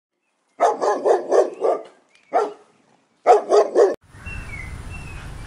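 A dog barking: a run of about five barks, a single bark, then three quick barks. After that comes a steady low background rumble.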